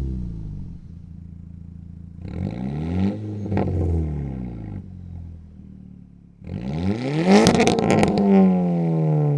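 Volkswagen MK6 GTI's turbocharged 2.0-litre four-cylinder exhaust being free-revved twice from idle, each rev rising and falling back. The second rev is louder, with a short burst of crackles near its top.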